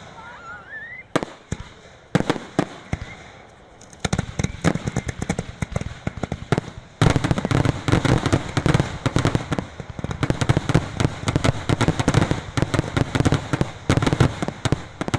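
Aerial fireworks going off: a short rising whistle and scattered bangs at first, dense crackling from about four seconds in, then a rapid, continuous barrage of reports from about seven seconds in.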